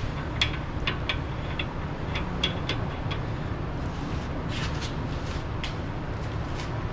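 Light metallic clinks and taps, about a dozen at irregular intervals, as metal parts and tools are handled during work on a wheel hub, over a steady low rumble in the background.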